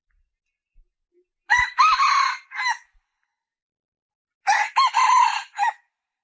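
Junglefowl hen calling twice, about three seconds apart, each call a short phrase of three or four notes.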